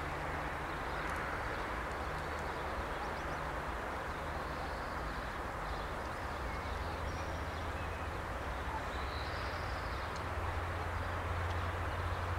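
Steady low diesel engine hum of an approaching Siemens Desiro diesel multiple unit, growing louder near the end, over an even outdoor hiss with faint bird calls.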